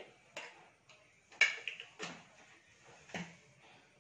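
A few short, sharp clicks and knocks of kitchen utensils being handled, about four in all, the loudest about one and a half seconds in.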